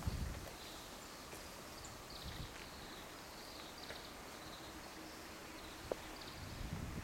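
Faint outdoor ambience with soft high chirps repeating every second or so, and a single small click about six seconds in.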